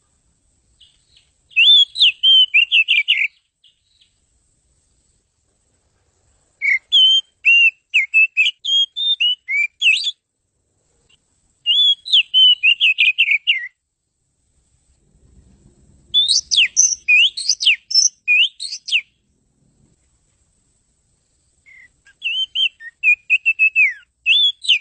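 Oriental magpie-robin (kacer) singing: five bursts of rapid, varied whistled notes, each a couple of seconds long, with pauses of a few seconds between.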